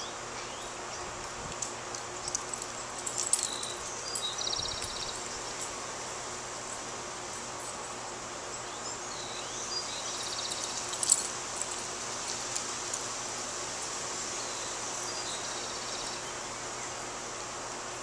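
Outdoor ambience: birds chirping, with a short repeated trill three times, over a steady high hiss, and a few light clicks, the loudest a little after three seconds in and again about eleven seconds in.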